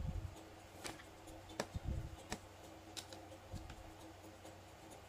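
Sharp clicks and dull light knocks of small plastic and metal parts being handled, as a metal axle shaft with its gear is worked into an RC crawler's axle housing; about four separate clicks in the first three seconds.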